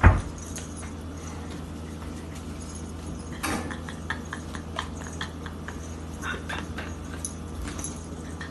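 Sounds of a pet animal: short clicks and brief scuffling noises, the loudest about three and a half seconds in, over a steady low hum.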